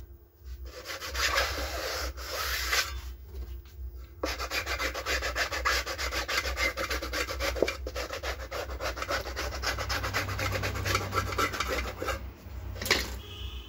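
Dry rubbing and scraping of hands working the rim of a freshly re-coned 12-inch loudspeaker, turning and rolling it so the fresh glue spreads round the edge. A dense, rasping run of rapid strokes, with a short break about four seconds in, stops shortly before the end.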